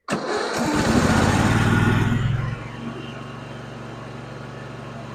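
Cub Cadet RZT 50 zero-turn mower's engine catching on a cold start with the choke on, after sitting all winter. It runs loud for about two and a half seconds, then drops to a steady, quieter idle.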